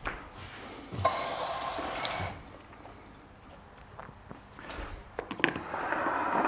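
Quiet kitchen handling noises: a short rustling hiss about a second in, then light rustling and a few clicks near the end as a food container is handled.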